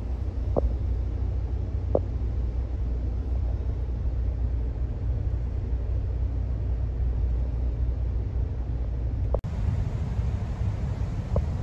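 Steady low rumble of a moving vehicle heard from inside, with a few light knocks, the first two early and one near the end. The background changes abruptly about nine seconds in.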